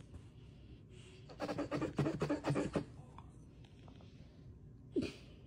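Dog playing tug of war with a rubber ball toy. A rapid, rasping burst of about a second and a half comes a little over a second in, and one short sharp sound with a dropping pitch comes near the end.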